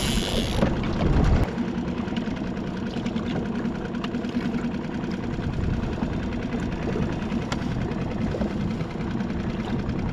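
Small outboard motor of a skiff running steadily at slow trolling speed. A louder burst of noise comes in the first second and a half.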